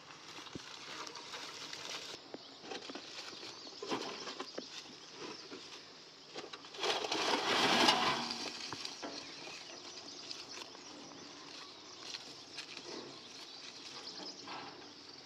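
Footsteps and a metal wheelbarrow moving over dry brush and stony ground, with rustling and occasional knocks and crunches. About seven seconds in comes a louder stretch of scraping and crunching lasting a second or so.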